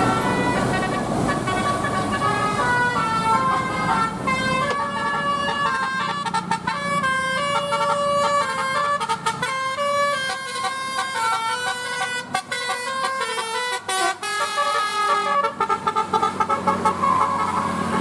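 Bus 'telolet basuri' musical horn playing a tune: a quick run of stepped notes, one after another, over engine and traffic noise. The tune starts about two seconds in and stops near the end.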